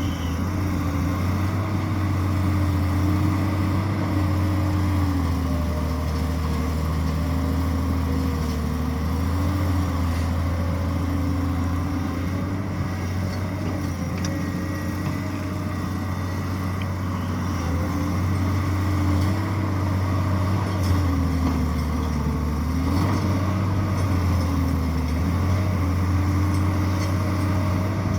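Tata Hitachi 200EX excavator's diesel engine running steadily, its note dipping and recovering a few times.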